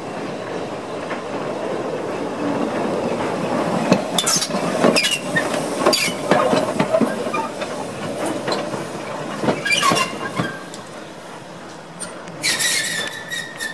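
1953 Hunslet Austerity 0-6-0 saddle tank steam locomotive moving slowly, with its open cylinder drain cocks hissing steam and irregular clanks and knocks as its wheels run over rail joints and points. Near the end a steam whistle sounds for about a second.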